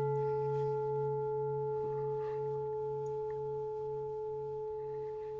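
A meditation singing bowl ringing out after a single strike: one steady bright tone over a low, wavering hum, slowly fading away.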